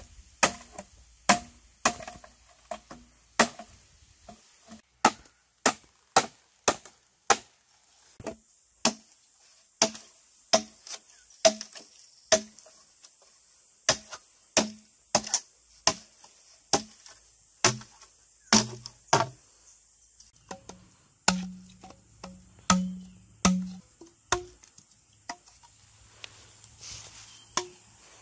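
Machete chopping through a green bamboo pole: a long run of sharp strikes, roughly one or two a second, some with a short hollow ring from the bamboo tube. The strikes thin out near the end, leaving a steady high hiss.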